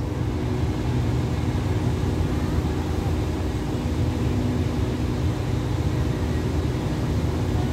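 Passenger train standing at the platform, its diesel engines idling with a steady low hum.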